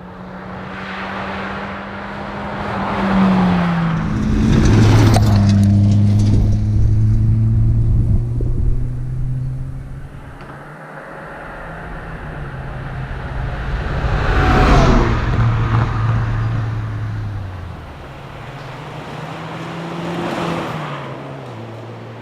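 Toyota Celica GT4 rally car's turbocharged four-cylinder engine at full throttle as the car passes three times, the loudness swelling and the pitch dropping at each pass.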